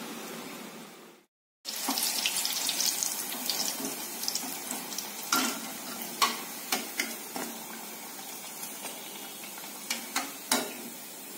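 Garelu (lentil fritters) deep-frying in hot oil, sizzling loudly after a brief gap about a second in and then easing off. A metal wire skimmer clinks against the pan several times as the fried fritters are lifted out.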